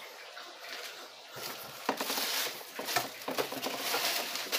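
Rummaging by hand through a bag of motorcycle parts: irregular rustling with a few light knocks, starting about a second and a half in.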